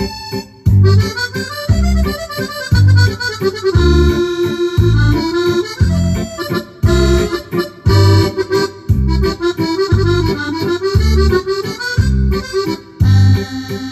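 Yamaha DGX670 digital piano playing a waltz on its sampled French musette accordion voice, the melody over the keyboard's own accompaniment with a steady beat of bass and drums in waltz time.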